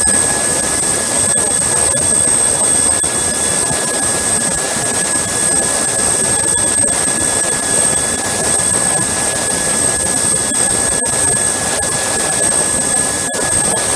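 Airbus A320 auxiliary power unit running steadily with a high turbine whine, and a loud rush of hot bleed air blowing out of the opened air-conditioning pack during a pack burn, the high-temperature airflow that vaporises oil contamination out of the pack.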